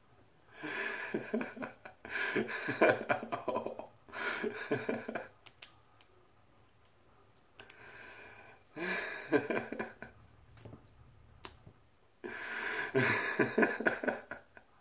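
A man laughing in several loud bursts, with short quiet pauses between them.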